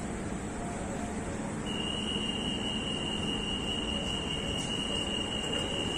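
Steady hum of a metro train standing at the platform, joined about two seconds in by a continuous high-pitched warning tone: the door-closing alarm of the platform screen doors.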